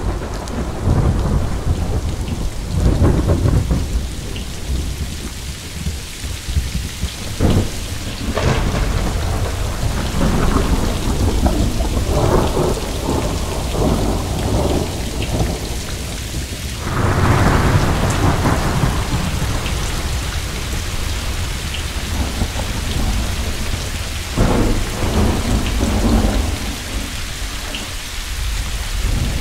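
Steady rain with rolling rumbles of thunder that swell and fade several times.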